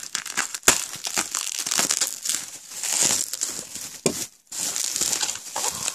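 Bubble wrap crinkling and crackling as it is cut open with a utility knife and pulled at by hand. There is one sharp click just under a second in and a brief lull a little past the middle.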